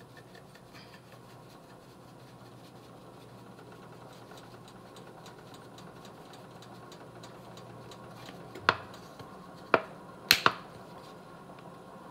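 Ground paprika being shaken from a metal spice tin, a faint rapid light rattling over a low steady hum. About two-thirds of the way in come four sharp clicks, the loudest sounds, as the spice tins are handled.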